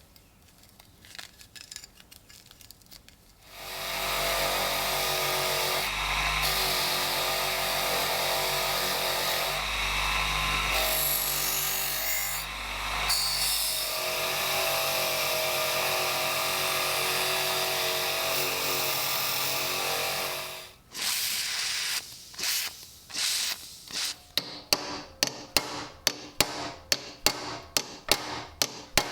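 A power tool runs steadily with a motor hum for about seventeen seconds, then stops. After a few short bursts, a fast run of sharp strokes follows, about two to three a second.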